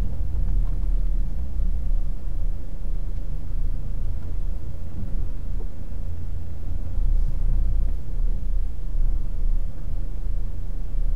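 Truck engine running at low speed, a steady low rumble heard from inside the cab, while the truck is pulled into a parking space.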